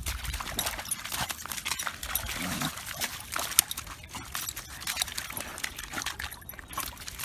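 A Labrador retriever pawing and digging in shallow water at a stony lake edge: irregular splashing and clacking strokes, with one sharp knock about three and a half seconds in.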